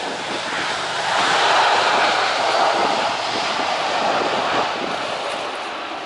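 Batik Air Airbus A320-200's jet engines during the landing roll: a steady rush of engine noise that swells about a second in and slowly fades near the end.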